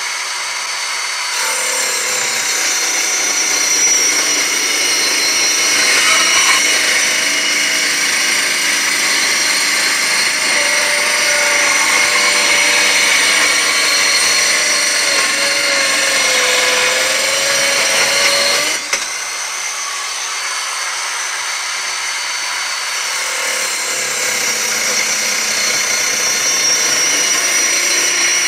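Portable 5-inch circular saw running and cutting wood with the grain: a steady, loud motor-and-blade whine whose pitch wavers and sags as the blade takes the load. About two-thirds of the way through, the lower part of the sound drops away suddenly, then builds back up toward the end as the saw bites in again.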